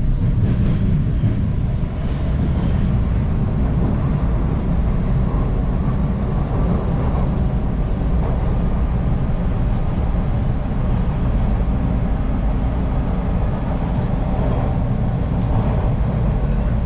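Steady running rumble of a TTC Line 2 subway train between stations, heard from inside the car, with a faint higher whine coming and going.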